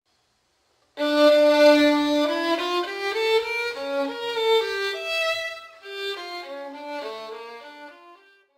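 A solo violin playing a short melody of quick, changing notes as intro music, starting about a second in and fading out near the end.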